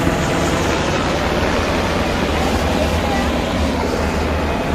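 Beach ambience: a steady wash of ocean surf with wind buffeting the microphone in an unsteady low rumble.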